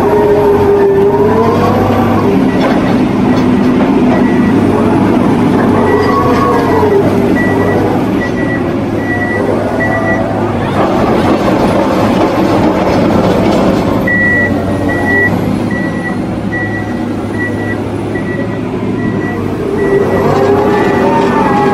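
Hydraulic piling rig's diesel engine and hydraulics working under load as the auger drills and is raised full of soil, the pitch rising and falling. A warning beeper sounds two runs of short high beeps, about three every two seconds.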